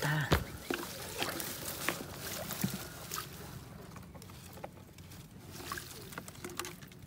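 Water sloshing and trickling with irregular splashes and knocks as a fish trap holding fish is lifted and handled in shallow water. The loudest knock comes right at the start.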